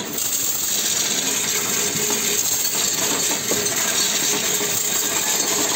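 Coinstar coin-counting machine running as 1-, 2- and 5-cent euro coins pour through it: a continuous, even rattle of coins clinking and tumbling in the sorter while they are counted.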